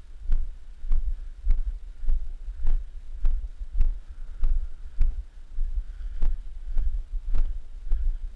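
Regular thumps, a little under two a second, each a short sharp stroke, over a steady low wind rumble on the microphone of a body-worn action camera.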